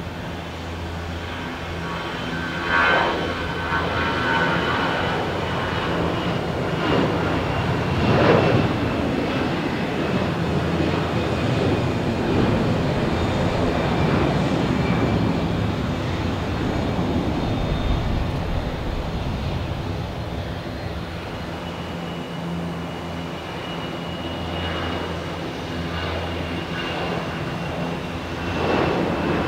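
Jet airliner engines during a takeoff: a steady rumble with a high whine that slowly falls in pitch, and a few brief louder swells.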